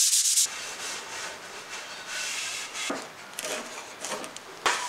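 Sandpaper rubbing back the sanding sealer on a wooden tabletop by hand, in quick rhythmic strokes that stop about half a second in. Then quieter handling noise, with a sharp click about three seconds in and another near the end.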